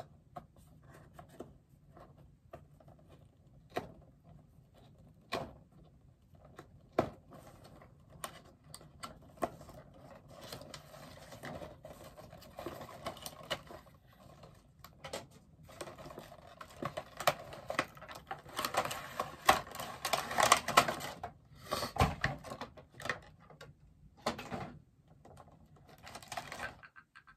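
Hands unboxing a bobblehead's cardboard box: scattered sharp clicks and snaps of tape and packaging at first, then a long stretch of crackling, scraping and rustling as the box and its packing are pulled open, busiest about two-thirds of the way through.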